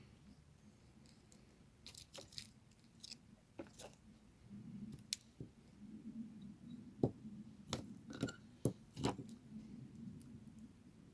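Scattered small clicks and taps of hand tools and wires being handled while connecting the wiring inside a violet ray device's handle, with a faint low hum coming in about halfway.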